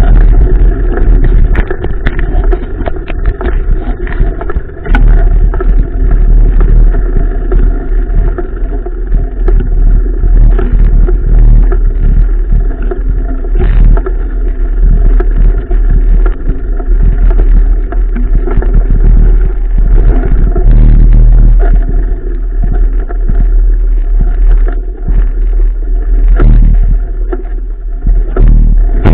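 Mountain bike riding over a rough trail, heard through a GoPro mounted on the bike: a heavy, steady wind rumble with irregular rattles and knocks from the bike jolting over the ground.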